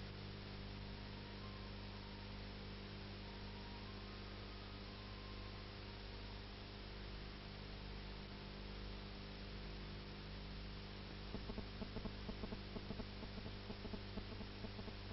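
Steady electrical mains hum with a layer of hiss and no music or voice. From about eleven seconds in, a fast, irregular faint ticking joins it.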